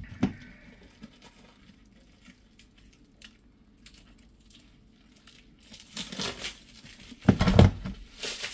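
Black plastic parcel wrapping being cut and torn open with a utility knife, with scattered faint clicks and handling knocks, then louder crinkling and tearing bursts in the last couple of seconds.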